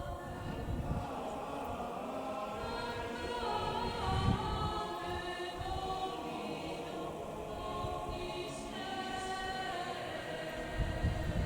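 Choral music: voices singing sustained chords that shift slowly.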